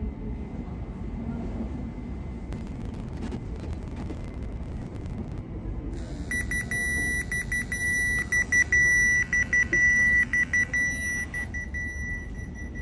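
Restaurant guest pager going off on the table: a high-pitched electronic beeping that starts about halfway through, pulsing rapidly and loudest near the end. It signals that the food order is ready for pickup.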